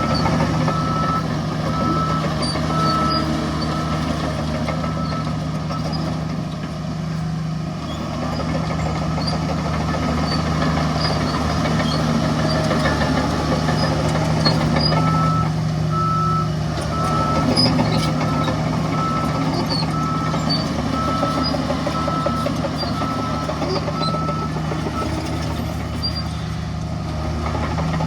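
Heavy diesel earthmoving machinery running steadily, with a reversing alarm beeping about one and a half times a second. The alarm stops shortly after the start, resumes about halfway through and stops again near the end.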